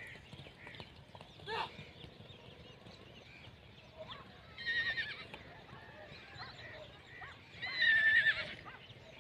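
A horse whinnying twice, about five and eight seconds in, the second call louder and longer.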